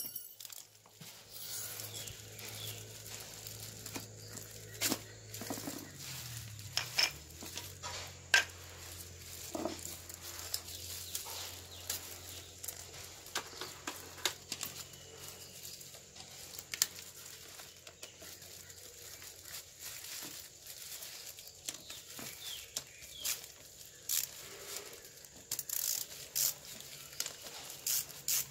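Scattered metal clicks, scrapes and taps from a screwdriver and hand tools working the clutch pulley and shaft of a Toyota Premio's AC compressor during teardown, with a quick run of sharper taps near the end.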